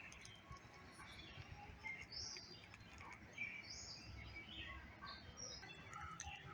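Faint birds chirping and calling in short scattered notes over a quiet low background hum.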